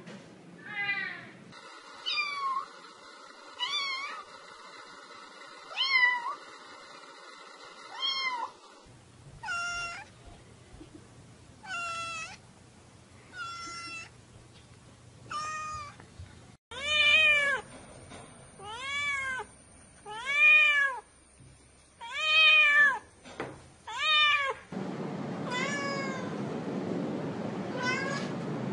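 Domestic cat meowing over and over, a short arched meow about every one to two seconds. The background hiss changes abruptly several times between runs of meows.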